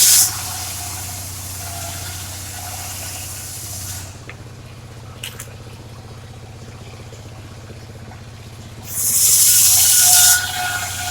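Circular saw running free with a steady hum, its blade cutting through dry waru wood twice: a cut ends just after the start, and a loud, high-pitched cut of about a second and a half comes near the end.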